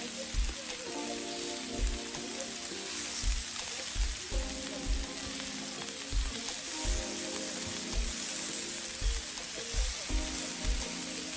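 Salmon fillets sizzling on a flat-top griddle, a steady hiss. Background music with a steady beat plays over it.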